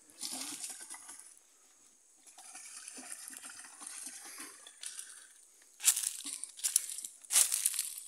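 Leaves and brush rustling and crackling as someone pushes through forest undergrowth, with two short, louder bursts of noise near the end.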